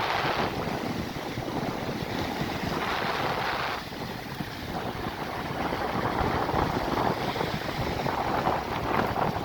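Sea waves washing in, with wind rumbling on the microphone; the surf swells louder in surges, one about three seconds in.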